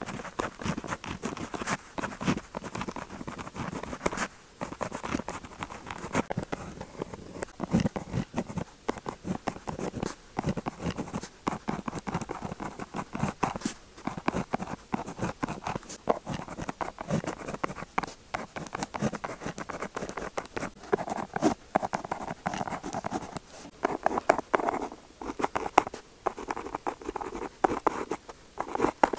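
Pen tip scratching on paper in quick, uneven strokes: close-up handwriting.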